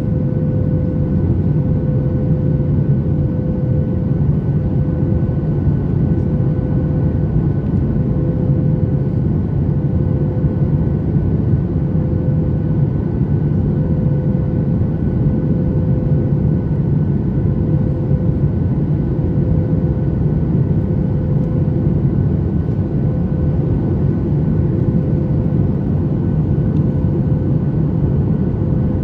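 Steady cabin noise inside a Boeing 737 MAX 8 airliner: a constant deep rush of airflow and CFM LEAP-1B engine noise, with a steady hum tone running through it.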